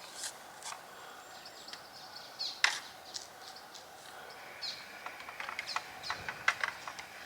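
Short bird chirps with scattered clicks and knocks. The sharpest knock comes about two and a half seconds in, and a quick run of clicks comes near the end.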